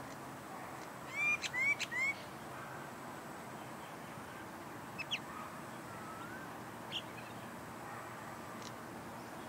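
Common myna calling: three short, loud, rising whistled notes mixed with clicks about a second in, followed by a few faint chirps.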